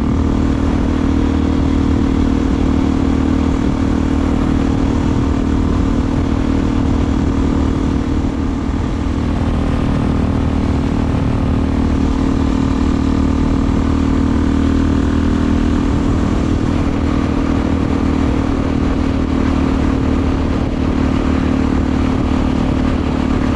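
Suzuki DR-Z400SM's single-cylinder engine running through a Delkevic aftermarket exhaust, holding a steady note while riding at an even speed.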